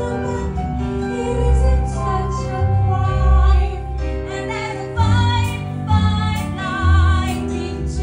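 A woman singing with a wide vibrato through a microphone, over backing music with a deep bass note that comes back about once a second.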